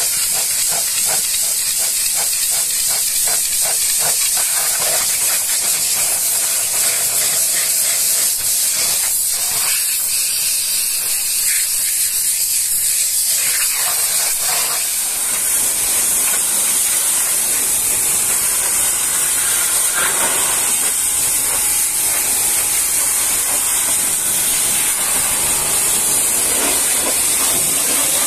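Pressure washer jet hissing steadily as it blasts water onto a truck's wheel and tyre, with spray spattering off the rim.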